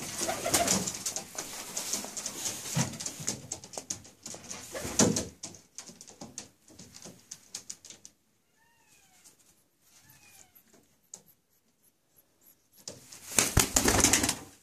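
Domestic pigeon's feathers rustling and wings flapping as it is held and handled, with clatter. Faint short falling squeaks in the quiet middle. Near the end a loud burst of wingbeats as the pigeon flies off into a nest box.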